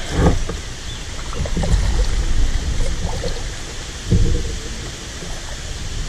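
Kayak paddle strokes in shallow creek water: a few splashes and dull thumps from the paddle and hull over a constant low rumble of moving water.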